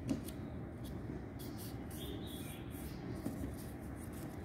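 A small square of origami paper being folded in half and creased by hand: faint, short rustles and scrapes of paper, a few of them spread through.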